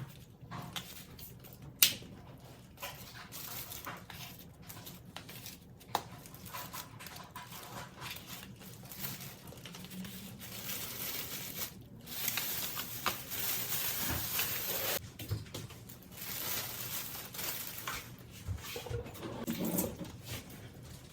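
Kitchen handling noises as raw chicken wing pieces are prepared: irregular crinkling and squishing, with a sharp click about two seconds in and another at about six, and a denser stretch of crinkling in the second half.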